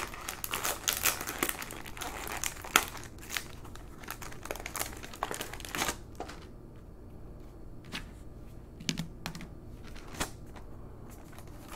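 Paper floppy-disk mailer being torn open and crinkled by hand: dense crackling for about the first six seconds, then sparser rustles and clicks as the disk and paper insert are handled.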